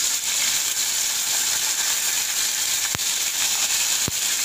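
Curry leaves sizzling in hot sesame oil in a kadai during tempering: a steady frying hiss, with two sharp pops about three and four seconds in.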